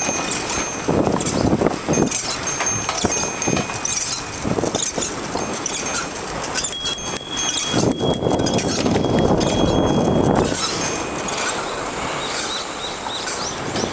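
Bicycle being ridden on a paved path: the frame and loose parts rattle and clatter, with thin high squeals coming and going. Louder rushing stretches about a second in and again from about 8 to 10 seconds.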